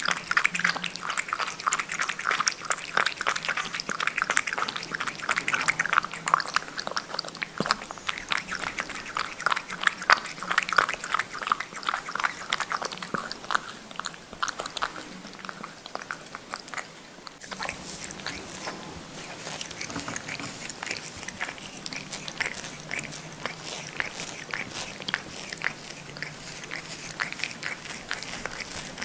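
A cat lapping liquid from a ceramic bowl: a dense run of rapid, close-up lapping clicks. About 17 seconds in, it changes abruptly to lighter, scattered licking as the cat grooms its paw.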